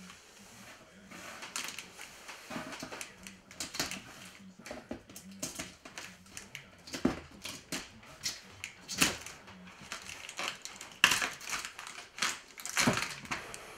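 Model kit parts, paper and cardboard being handled in the kit box: irregular clicks, taps and rustling, with a few sharper knocks.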